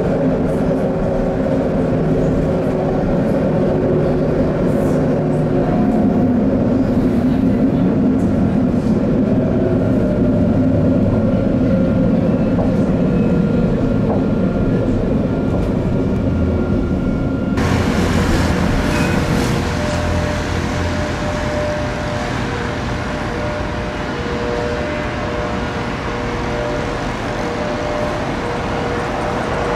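Inside a moving Alstom Citadis 402 tram: steady running noise with the whine of the electric traction motors, one tone sliding slowly down in pitch partway through. About eighteen seconds in the sound cuts to trackside, where an approaching tram hums steadily.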